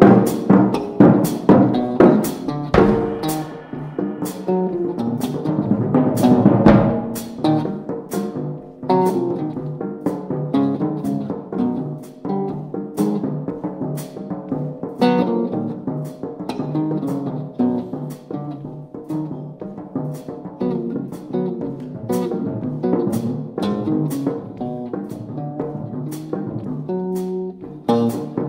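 Live jazz duo of archtop electric guitar and drum kit: the amplified guitar plays busy runs of notes and chords while the drums and cymbals add frequent sharp hits, heaviest in the first several seconds and again near the end.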